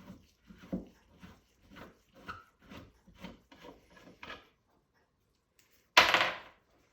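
Short rubbing, scraping strokes, about two a second, from a bolt being unscrewed on the brackets that hold a longcase clock movement. A single loud knock follows about six seconds in.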